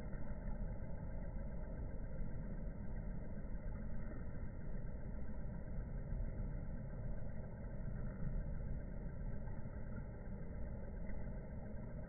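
Steady, even low rumble of outdoor background noise, muffled, with no bird calls.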